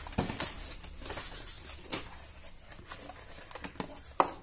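Cardboard box being opened by hand, its flaps scraping and the plastic-bagged parts inside crinkling in a run of irregular rustles, with one sharper click near the end.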